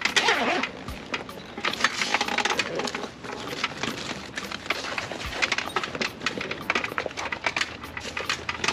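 Canvas shower-tent cover being handled by hand: fabric rustling and scraping, with scattered small clicks.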